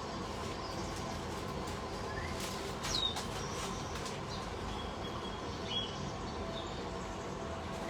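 Pet parrots giving a few short chirps and whistles, one rising and one sharply falling, over a steady background hum.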